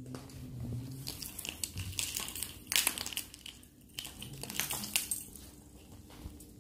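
Thin plastic bag crinkling and rustling as it is handled, in irregular rustles with the sharpest crackles about three seconds in.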